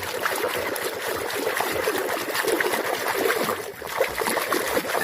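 Water splashing and trickling as a muddy toy vehicle is swished and scrubbed by hand in water, with many small clicks and knocks of the toy.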